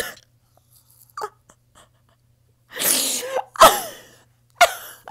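A woman's exaggerated, breathy mock sobbing: three loud sobs in the second half, the middle one with the voice sliding down in pitch.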